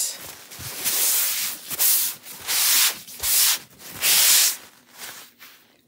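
Rubbing strokes of a crumpled white cloth wiping a surface: about five brisk hissing strokes, each around half a second, a little under a second apart.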